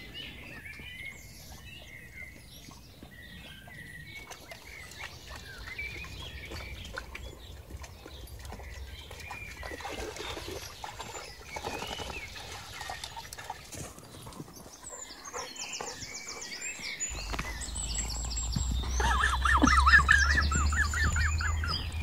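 Birdsong, with soft splashing as a pit bull and a boxer wade through a shallow stream. A low rumble on the microphone starts about 17 seconds in, and near the end a loud, rapid trill is the loudest sound.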